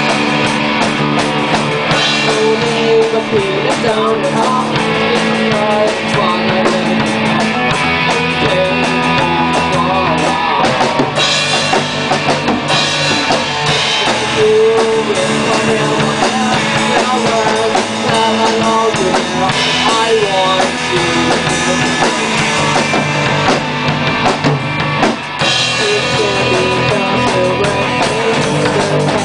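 A small live band playing: a drum kit keeping time under pitched instruments carrying a melody.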